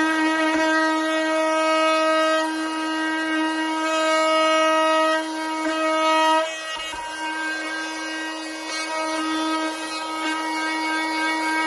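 Makita DTM52 18V brushless oscillating multi-tool running with a sanding pad fitted: a steady, loud, high buzz. About six and a half seconds in it drops in level with a brief low knock, then runs on more quietly.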